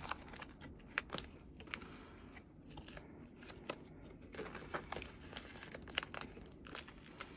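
Clear plastic binder pocket pages crinkling faintly as sleeved photocards are slid into their pockets, with a few light clicks along the way.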